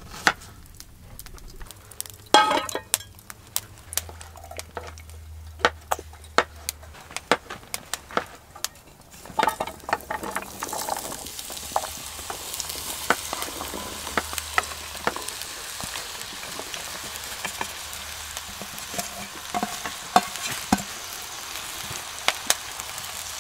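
Utensils clicking and scraping in a pan, then, about ten seconds in, a pan of vegetables and mushrooms starts sizzling as it sautés over a wood fire, with stirring clicks through the sizzle.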